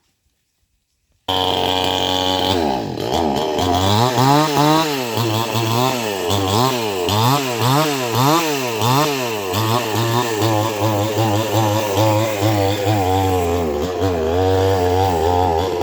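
Two-stroke chainsaw engine cutting in abruptly after a moment of silence. It is revved up and down in quick regular pulses, about three every two seconds, then runs at a steadier high speed near the end.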